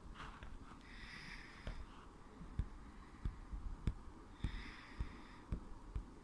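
Faint breathing close to the microphone, two soft breaths about a second in and again near four and a half seconds, with several soft low thumps from the camera being handled at the telescope eyepiece.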